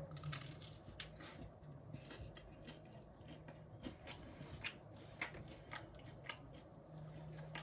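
Faint, irregular crunching clicks of someone chewing cheese-covered nacho chips, a couple of crunches a second.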